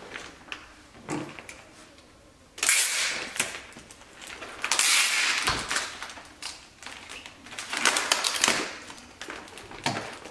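Packing tape pulled off a roll in three loud rasping rips: one about two and a half seconds in lasting over a second, one around five seconds, and a shorter one near eight seconds. Between them, the plastic sheet wrapped around the painting rustles and crinkles under the hands.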